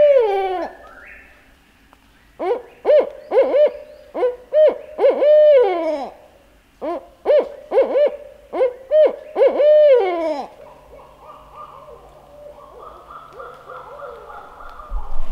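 Barred owl hooting its 'who cooks for you, who cooks for you-all' call: one drawn-out falling hoot, then two loud phrases of about eight hoots each, each ending in a long falling note. Fainter, softer sound follows near the end.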